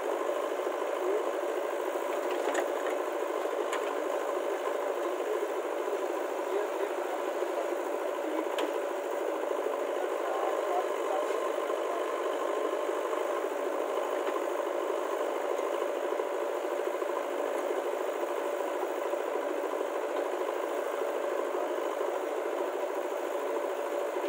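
Heavy diesel engine running steadily at an even speed, with a few faint clicks over it.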